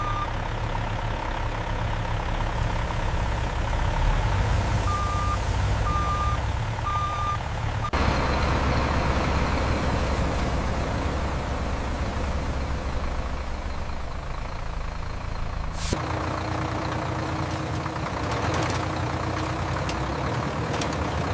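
Heavy truck engine running steadily, with a short run of reversing beeps about five seconds in. The rumble changes abruptly twice.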